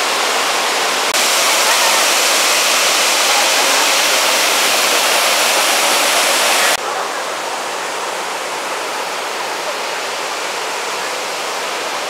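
Waterfall cascading down tiered falls into pools: a steady rush of falling water. It jumps louder about a second in and drops to a softer rush near seven seconds in.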